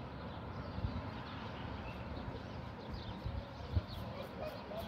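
Outdoor background noise with faint bird chirps, and a few low thumps, the loudest near the end.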